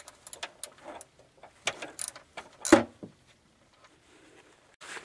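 Clicks and metallic knocks from hand tools being worked on a car, with one loud clank a little under three seconds in. A steady hiss starts near the end.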